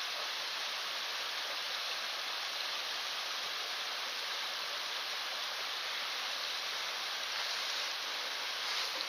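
A steady, even rushing hiss like running water, with no distinct events, swelling slightly near the end.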